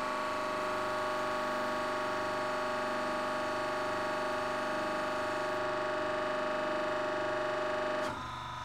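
Pump of a deep sea pressure chamber running with a steady whine while it pressurises the chamber toward 200 bar; the sound cuts off about eight seconds in.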